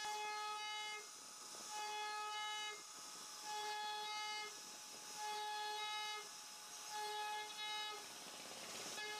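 CNC router spindle running with a steady high whine while its bit carves grooves into a wooden panel. The whine breaks off and comes back about every second and a half to two seconds, with a rougher hiss of cutting in the breaks.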